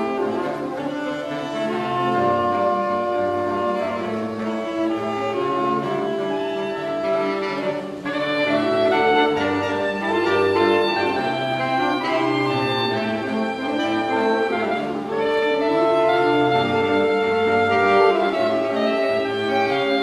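A saxophone quartet of soprano, alto, tenor and baritone saxophones playing together: held chords and a melody over a low, moving bass line.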